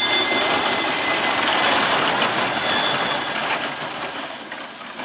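Vekoma Roller Skater junior coaster train rolling past on its tubular steel track, its wheels running with a steady noise and a high squealing whine. It fades near the end as the train moves away.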